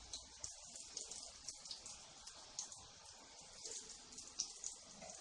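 Nimki deep-frying in hot oil, a steady sizzle with many small crackles and pops.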